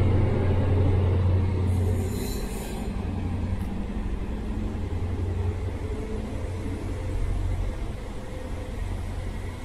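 A diesel HST with Class 43 power cars pulling out: a steady low engine drone and rail rumble, loud at first and falling away about two seconds in as the train moves off.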